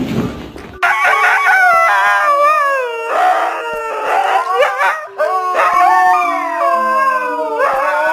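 Dog howling in long, wavering howls that slide up and down in pitch, starting about a second in.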